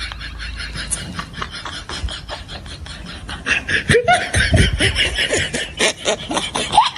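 A person laughing under the breath: rapid breathy snickering in short repeated pulses, breaking into a few voiced laughs about four seconds in.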